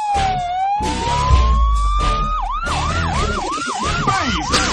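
Siren sound effect in a dance track: a slow wail falls and rises, then about halfway through switches to a fast yelp, over a steady beat with heavy bass.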